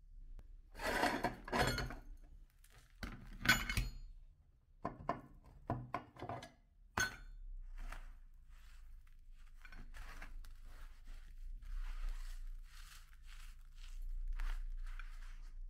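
Metal parts of a meat grinder, the perforated plate and cutting knife, knocking and clinking as they are taken off and set down in a plastic tray, a few sharp strikes in the first seven seconds. Then dry ground ice cream cone crumbs hissing softly as handfuls are scooped up and let fall through the fingers.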